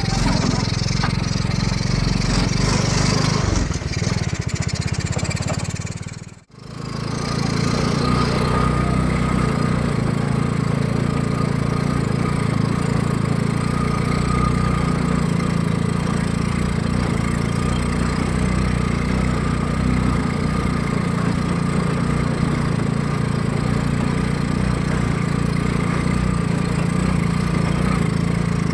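Single-cylinder four-stroke engine of a Honda Supra X 125, mounted in a homemade mini jeep, running steadily. The sound fades out briefly about six seconds in and then carries on the same.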